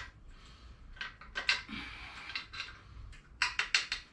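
Small metal lawn mower engine parts clinking and tapping as they are handled, with a quick run of sharp clicks about three and a half seconds in.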